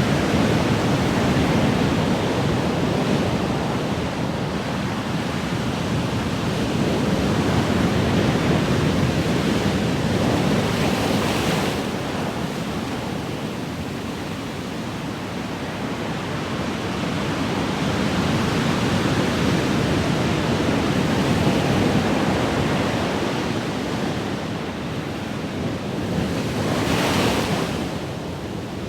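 Ocean waves washing in, a continuous hiss of surf that swells and eases over several seconds, with a brighter wash of a breaking wave about eleven seconds in and again near the end.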